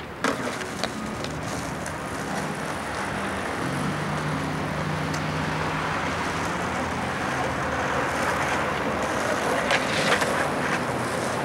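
Skateboard wheels rolling over rough asphalt: a steady rolling noise that grows slightly louder, with a few sharp clacks of the board near the start and again near the end.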